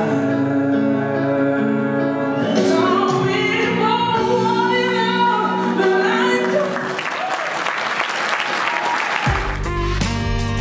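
A singer performing a song with musical accompaniment, then audience applause about seven seconds in. Near the end a different, bass-heavy music track cuts in.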